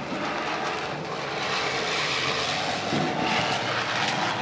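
Ground-spinner firework (chakri) whirling on the floor with a steady hiss of burning spark powder.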